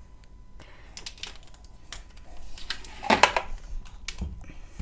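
Light scattered clicks and taps of hands handling a plastic syringe and a freshly pressed stick of moist chalk paste, smoothing it straight. The clicks come thickest and loudest about three seconds in.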